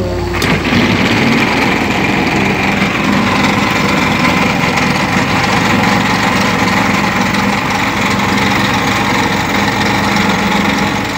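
Excavator-mounted hydraulic vibratory pile hammer switching on abruptly and running steadily, shaking a steel pile down into the riverbed, with the excavator's diesel engine working under load.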